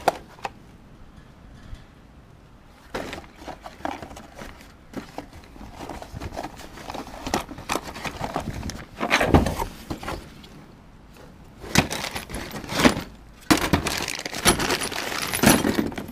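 Hands rummaging through a cardboard box of loose electronic parts: metal-cased transistors, components and cables clink and rattle against each other and scrape on the cardboard. The clatter is louder about nine seconds in and again in the last few seconds.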